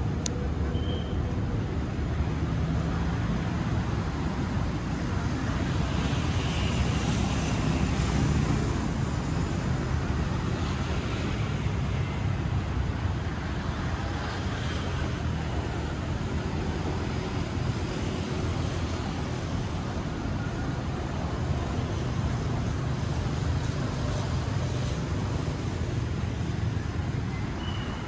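Steady road traffic noise, the mixed sound of passing cars, swelling a little about eight seconds in. A few faint short high chirps sit over it.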